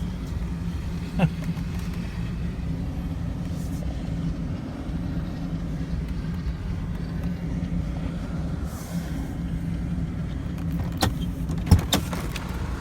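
Minivan running, a steady low engine hum, with a sharp click about a second in and a few knocks near the end.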